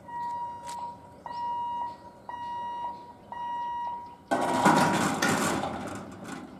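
Electric level-crossing warning alarm beeping: four long steady beeps, about one a second. About four seconds in, a sudden loud rushing noise cuts across and fades over the next two seconds.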